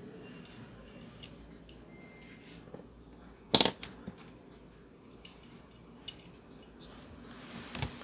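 Small clicks and taps of screws and fan motor mount parts being handled, with one louder knock about three and a half seconds in.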